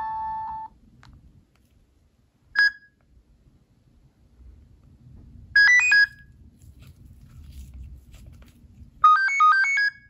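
Nokia 3650 phone speaker playing short synthesized ringtone melodies: one melody ends under a second in, then a single short note, a quick rising run of notes a little past halfway, and a short bouncing figure of alternating notes near the end.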